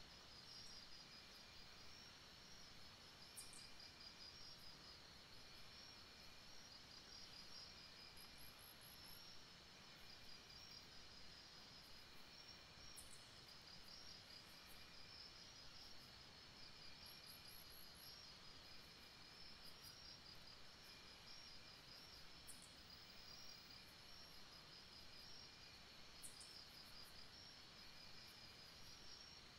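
Near silence, with faint, high, pulsing insect chirps repeating steadily in the background.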